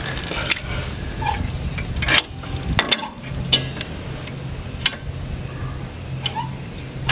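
Metal clicks and clacks of a Pat's Easy Change three-point quick-hitch hook as its spring latch and keeper are worked by hand: about half a dozen sharp clicks spread through, over a steady low hum.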